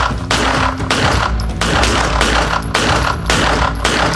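Rapid semi-automatic pistol fire from two handguns shooting at once, sharp shots about two to three a second, echoing off the concrete walls of an indoor range.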